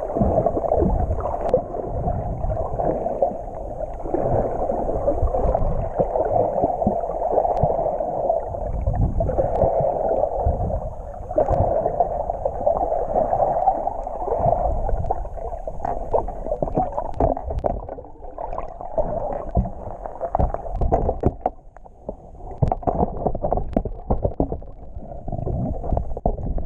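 Muffled underwater water noise through an action camera's waterproof housing: a steady churning, gurgling rush with low rumbles and frequent small knocks, briefly quieter about three quarters of the way through.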